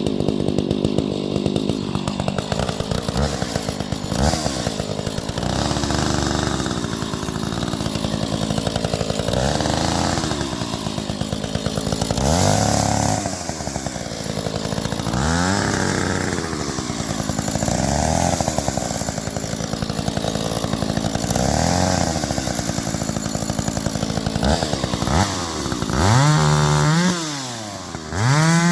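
Stihl 031AV two-stroke chainsaw running, its pitch rising and falling every two to three seconds as it is throttled up and eased off, typical of bucking branches. Near the end it revs hard twice, dropping back toward idle in between.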